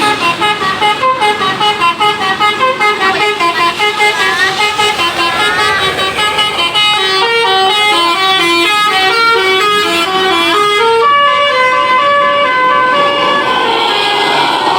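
Basuri multi-tone 'telolet' bus horn playing a melody: quick runs of short stepping notes, changing about two-thirds of the way through to longer held notes.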